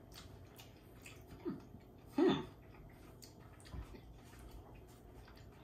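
A man chewing a jelly bean, with faint small mouth clicks, and a brief 'mm' sound about two seconds in as he tastes it.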